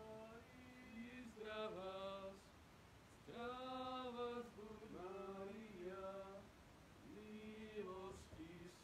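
Faint male voices singing a slow Slovak Marian hymn in held phrases about a second long, with short breaks between them.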